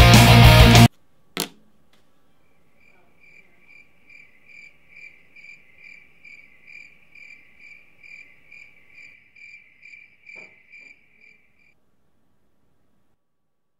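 Crickets chirping evenly, about two chirps a second, the stock sound of an awkward silence. A single sharp knock comes just before the chirping starts, another comes late in it, and the chirping stops a couple of seconds before the end.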